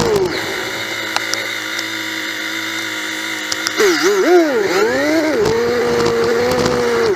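Honda Magna's V4 motorcycle engine running at low, steady revs, then about four seconds in revving up and dropping back several times in quick succession as the bike accelerates through the gears, before settling to a steady run.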